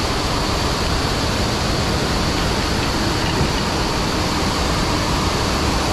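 Steady, deafening rush of a waterfall close by, an even wall of water noise.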